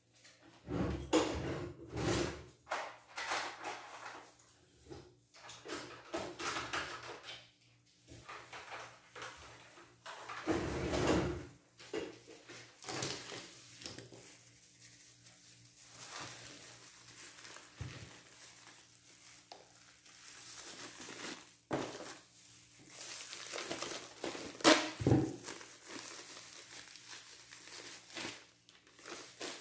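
Plastic bags rustling and plastic tubs being handled as cubes of white cheese are packed: irregular crinkles, clicks and light knocks, with one sharp knock near the end.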